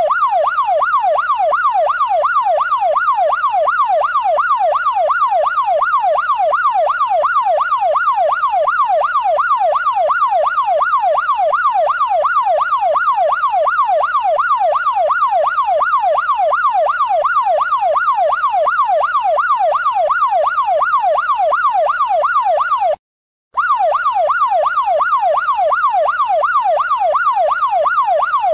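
Police siren in a fast yelp, its pitch sweeping up and down two to three times a second without a break. It cuts out completely for about half a second once, late on, then carries on unchanged.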